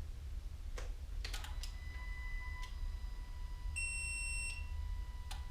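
Electronic warning tones and clicks from the bench-wired electronics of a 2005 VW Beetle's 1.9 TDI swap: a few sharp clicks, then a steady beep tone comes on about two seconds in and holds, with a brighter short beep a little before four seconds and another click near the end.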